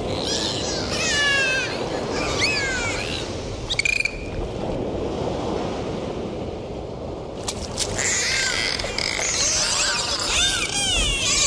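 Dolphins whistling underwater: a run of quick rising-and-falling whistles, several overlapping, that pauses for a few seconds mid-way and then resumes. A few sharp clicks come around the pause, over a steady underwater hiss.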